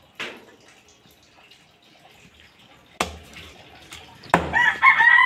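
A cleaver chops through roast rabbit on a chopping block, about four sharp chops spaced apart. Near the end a rooster starts crowing, louder than the chops.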